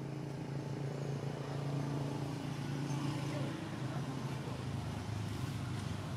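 An engine running steadily, a low hum.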